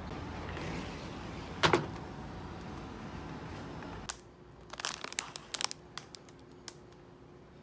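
A clear plastic sandwich bag crinkling in a run of short crackles as it is handled, after a steady background hum that stops suddenly about four seconds in. A single sharp knock, the loudest sound, comes a little under two seconds in.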